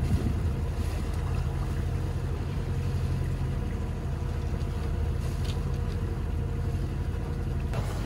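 Sailboat's inboard engine running steadily under way: an even low drone over a faint hiss of wind and water.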